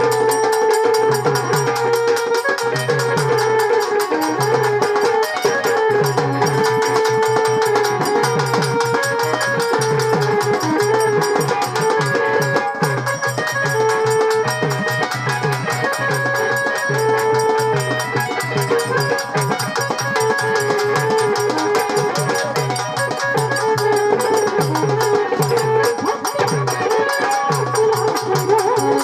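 Traditional Marathi folk music: a melody of held notes over steady drumming and percussion.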